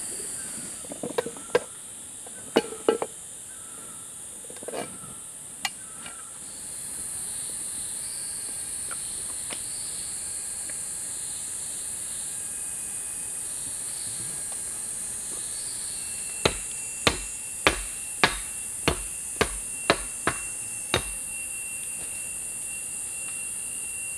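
Insects drone high and steady throughout, with a few short bird calls in the first seconds. About two-thirds of the way in, a run of about nine sharp knocks comes roughly two a second, like a tool striking wood.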